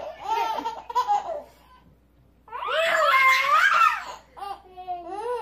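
Baby laughing hard in belly laughs: one burst at the start, a short pause, then a louder burst, and a few short high rising laughs near the end.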